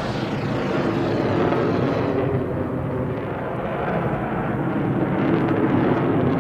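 A steady rumbling noise with no separate shots in it; its high hiss dies away about two seconds in, leaving a duller rumble.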